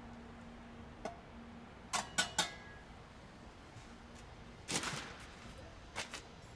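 Sharp clinks of a metal hand tool against stone and concrete: three quick strikes about two seconds in, the last one ringing briefly, a short scrape near five seconds, and two more knocks near the end.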